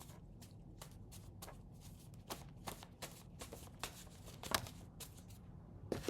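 A deck of oracle cards being shuffled by hand: a run of soft, irregular card slaps and riffles, with a louder slap about four and a half seconds in.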